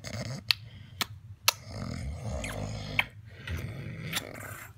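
A man snoring low and rough in his sleep, with sharp kissing smacks over it: three in quick succession about half a second apart, then two more later.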